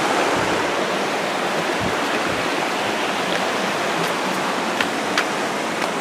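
River water rushing steadily over rocks, with a couple of faint clicks near the end.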